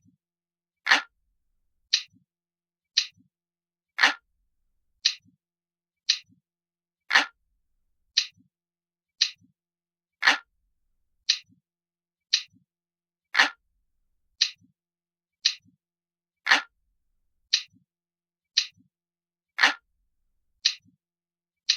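Ticking clock sound of a countdown timer: one sharp tick a second, every third tick fuller and heavier, each followed by a faint low click.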